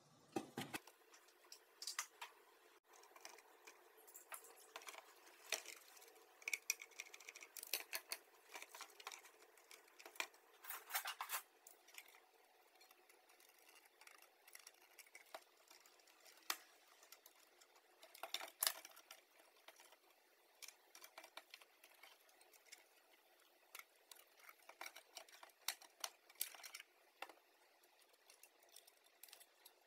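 Faint, irregular clicks and taps in a small room, with no steady machine sound.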